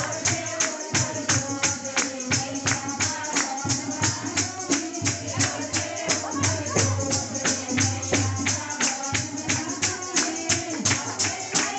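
Hindu devotional kirtan music: a woman singing through a microphone and loudspeaker over a steady fast beat of jingling hand percussion, about four strikes a second, with a low drum underneath.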